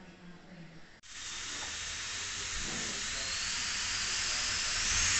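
Steam hissing steadily from a small steam locomotive. The loud hiss starts abruptly about a second in and slowly grows louder.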